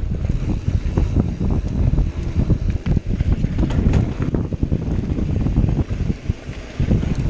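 Wind buffeting the microphone of an action camera on a mountain bike riding fast down a dirt trail. Under it run the low rumble of the tyres and frequent short rattles from the bike over bumps, all easing briefly near the end.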